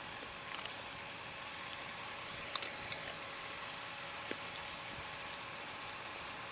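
Steady outdoor background hiss with a short cluster of sharp clicks about two and a half seconds in.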